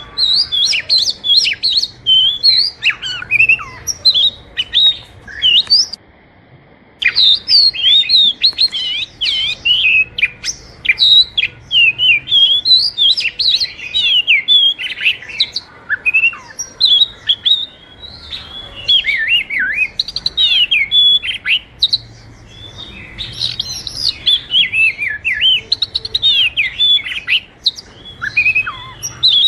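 Oriental magpie-robin singing vigorously: a fast, varied run of high whistles, slurred notes and chirps, broken by a pause of about a second early on.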